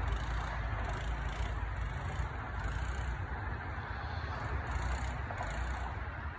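A 1999 Arctic Cat 300 ATV's single-cylinder engine running unevenly as the ATV is ridden through the mud.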